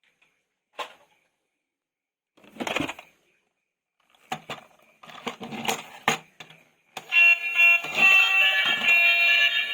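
Clicks and rustles of plastic toys being handled, then about seven seconds in a loud electronic tune of many steady alarm-like tones starts abruptly and keeps going.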